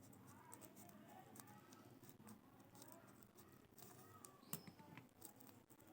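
Faint voices in the background with scattered small clicks, the sharpest about four and a half seconds in.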